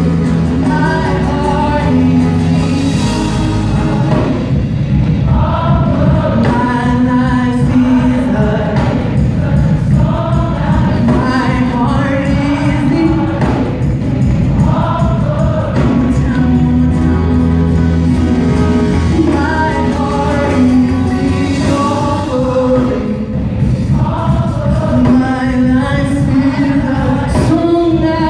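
Live gospel worship song: a group of mixed voices singing together into microphones over a band, with sustained low bass notes under the voices.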